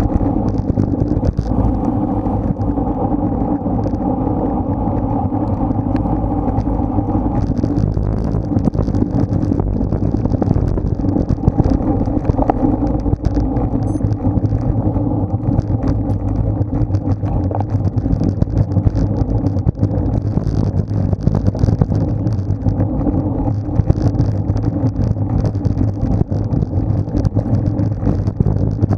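Steady wind and road noise on a bike-mounted action camera's microphone while riding in a road race, a continuous low rumble with a steady hum in it.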